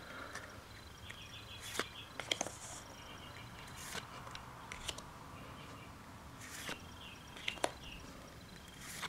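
Pokémon trading cards being handled one at a time: brief soft card slides and light taps, scattered every second or so, as each card is moved off the stack. Faint high chirping is in the background.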